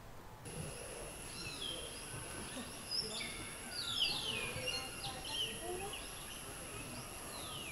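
Forest birds calling in many short, quick falling chirps over a steady high insect drone that starts about half a second in.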